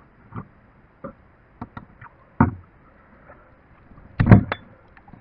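A series of light knocks and clicks at uneven intervals, with a sharper knock about two and a half seconds in and the loudest cluster of knocks just after four seconds.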